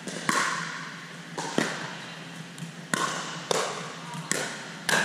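A pickleball doubles rally: sharp pops of paddles striking the plastic ball, and the ball bouncing on the court, about six hits roughly half a second to a second apart. Each hit echoes briefly in the large hall.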